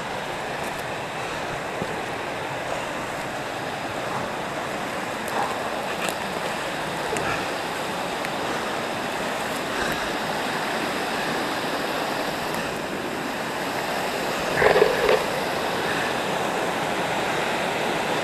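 Mountain creek cascading over rocks toward the top of a waterfall: a steady rush of water. A brief louder cluster of short sounds cuts in a little after three-quarters of the way through.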